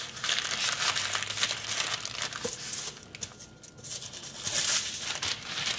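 Parchment paper crinkling and rustling as it is rolled tightly around a soft seitan sausage by hands in plastic gloves, briefly quieter around the middle.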